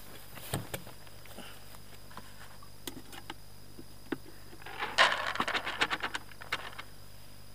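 Drained, water-soaked extruded fishing pellets poured from a plastic bucket into a plastic bait bowl. They make a dense pattering rattle starting about five seconds in and lasting about two seconds. Before it come a few light knocks of plastic buckets being handled.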